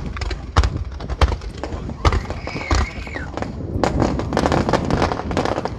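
Fireworks going off in quick succession: many sharp bangs of aerial shells bursting and launching, with crackling between them, coming thickest in the second half.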